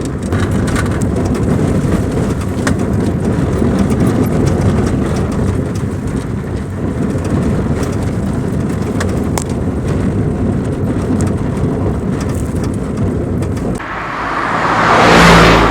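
Road noise of a moving car on a rough, broken road: a heavy low rumble with scattered knocks and rattles from the bumps. Near the end the rumble drops away and a rushing noise swells and then fades.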